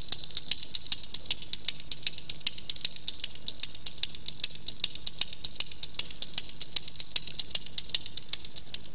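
Prayer beads (tasbih) clicking steadily, about four to five clicks a second, as they are passed one by one in counted dhikr, over a faint low hum.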